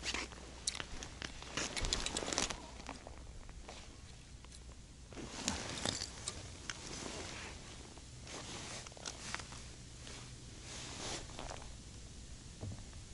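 Irregular crunching and rustling in short clusters: boots and gloves on the ice and slush around a fishing hole, and clothing moving as the angler shifts and handles the rod.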